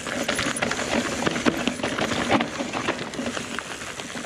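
Mountain bike clattering down a rocky trail: tyres crunching over stones and the bike rattling with many irregular knocks, over a steady rush of wind and tyre noise.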